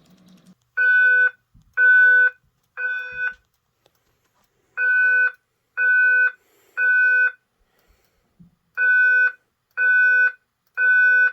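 Simplex fire alarm speaker strobe sounding a steady beep tone in the temporal three-pulse evacuation pattern: three half-second beeps, a pause, then three more, three groups in all. It was set off by a manual pull station.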